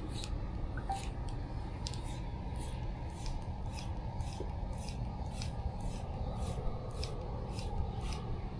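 Light, sharp clicks repeating about every three-quarters of a second over a steady low rumble.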